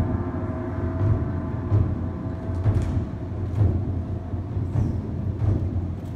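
Ensemble of large Chinese barrel drums played in a steady beat of deep strokes, several a second, with sharper, brighter hits mixed in every second or so.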